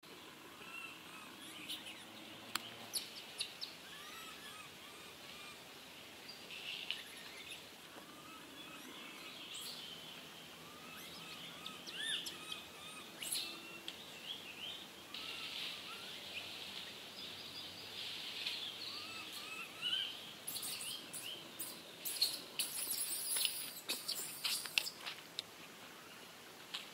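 Small birds chirping, with many short arched calls repeating throughout over steady outdoor background noise. Scattered sharp clicks and rustles come through, busiest a few seconds from the end.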